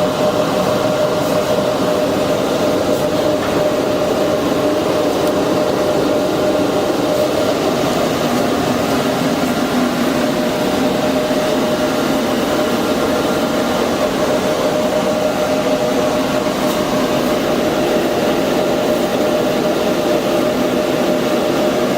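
Built-in air conditioner of an outdoor digital signage cabinet running steadily: a constant whooshing noise with a steady mid-pitched hum.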